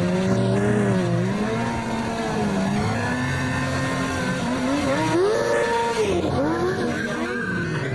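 Sport motorcycle engine revving up and down over and over as the stunt rider holds the bike in slides and spins, with the rear tyre skidding on the tarmac and smoking.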